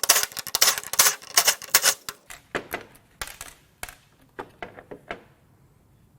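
Rapid metallic clicking and clinking of hand tools and small parts as a Ford 4.6L DOHC V8's oil pump is unbolted and opened. The clicks come thick and fast for about two seconds, then thin out to scattered single clicks and die away near the end.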